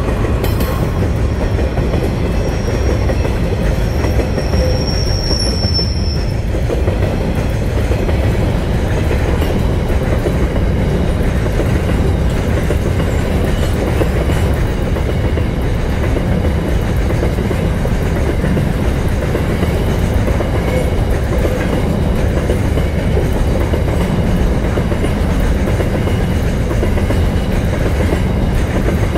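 Freight train of covered hopper wagons rolling past close by: a steady loud rumble and clatter of steel wheels on the rails, with a brief faint high wheel squeal a few seconds in.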